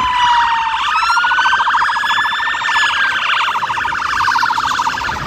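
Electronic siren wail from a toy fire truck, pulsing with a rapid flutter. Its pitch slides down for the first second, rises again over the next second or so, then slowly falls and stops at the end.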